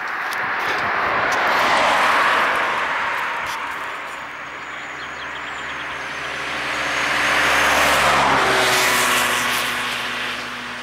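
Two cars passing on the road, one about two seconds in and another around eight seconds in, each rising and fading away; the second carries a low engine hum.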